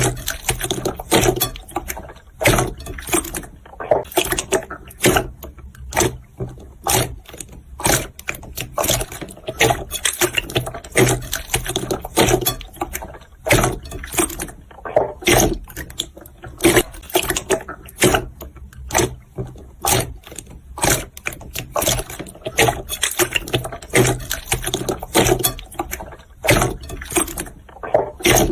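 Slime being squeezed and kneaded by hand close to the microphone, with irregular wet clicks and pops several times a second.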